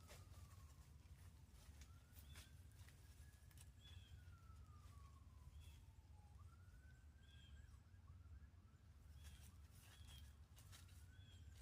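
Faint, distant siren wailing in slow rises and falls about every four seconds, over a quiet rural background with short high bird chirps and a few light clicks.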